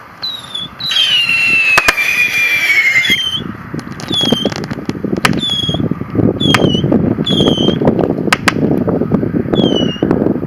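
Small whistling rockets fired from a radio-controlled plane. One long whistle slides slowly down in pitch, then short falling whistles come about once a second, with a few sharp cracks among them. A rough rushing noise builds from about four seconds in.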